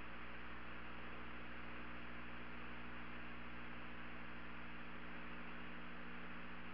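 Steady electrical hum with several fixed low tones under an even hiss: the background noise of an old broadcast audio line with no one talking on it.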